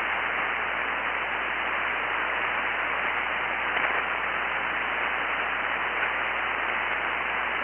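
Steady hiss of band noise from a ham radio receiver on 40-metre single sideband (7.188 MHz), an open frequency with no station answering the call for emergency traffic.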